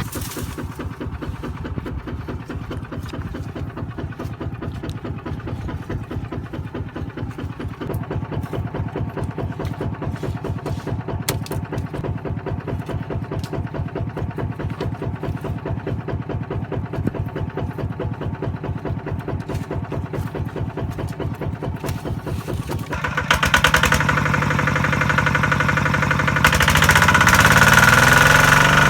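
Kubota RT155 single-cylinder diesel engine running with a fast, even beat. About 23 seconds in it speeds up and gets louder, and it picks up again near the end.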